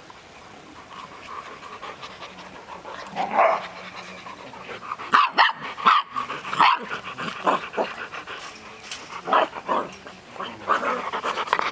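Six-week-old golden retriever puppies yipping and barking in short, high calls, first one about three seconds in, then a quick run of several loud ones about halfway through and a few more near the end.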